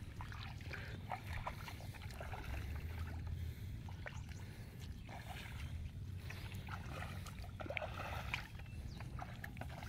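Bare footsteps squelching and sloshing through the shallow water and mud of a flooded rice paddy, coming in uneven bunches about every second, over a steady low rumble.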